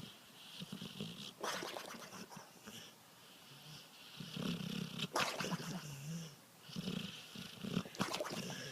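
A dog making several low, drawn-out sounds, each lasting a second or two, with three short, sharp breathy bursts between them.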